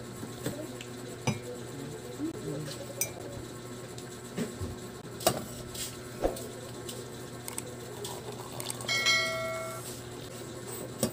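A metal spoon clinking and scraping against a glass jar and a drinking glass while instant ginger-tea powder is spooned out, with scattered knocks of things set down on the table. About nine seconds in, hot water starts pouring from an aluminium kettle into the glass, with a brief ringing tone.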